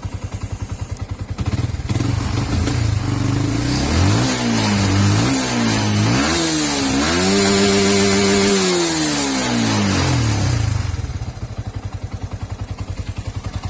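Yamaha R15 v2's single-cylinder four-stroke engine idling, then revved up and down several times with one longer held rev, before settling back to idle. It is running on a spare NGK spark plug meant for a Honda XRM, which the owner finds gives a slightly delayed throttle response, the original Denso plug having been faulty.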